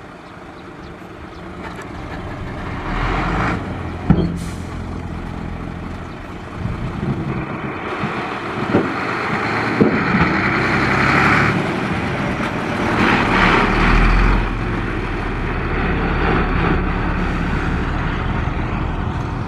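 Dump truck's diesel engine running under load as the raised bed tips out soil, growing louder over the first few seconds. Several bursts of rushing noise come over it, with a sharp knock about four seconds in.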